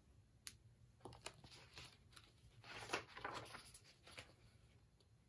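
Faint rustling and handling of a picture book as its page is turned: a light click, then a few soft paper rustles, the fullest about three seconds in.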